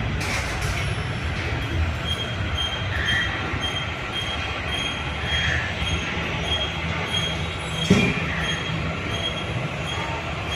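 Steady rolling rumble of a vehicle in motion, with a faint high chirp repeating about twice a second and a single sharp thump about eight seconds in.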